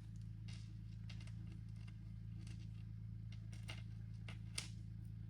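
A few faint, sharp clicks and light rustles as small jewellery pieces are handled, over a steady low electrical hum.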